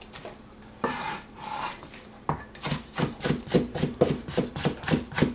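Chinese cleaver chopping bell pepper into small dice on a plastic cutting board: a quick, even run of sharp knocks, about four a second, from a little past the middle to the end. A brief rustling scrape comes about a second in.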